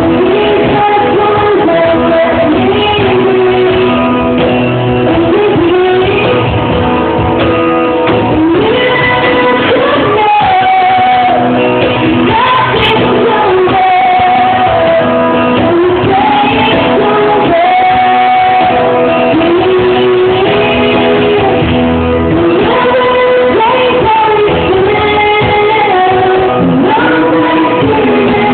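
A live acoustic song: a lead voice sings a held, gliding melody over acoustic guitar, with the echo of a large room.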